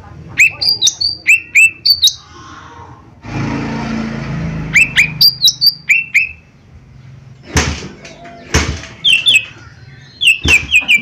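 A lesser green leafbird (cucak ijo mini) calls with sharp whistled notes that drop quickly in pitch, given in repeated groups. A rushing noise comes about three seconds in and two loud sharp knocks come about eight seconds in. Near the end the bird gives a fast run of repeated notes.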